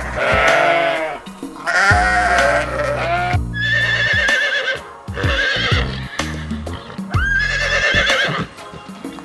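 A series of about six farm-animal calls, each about a second long with a wavering pitch, over background music.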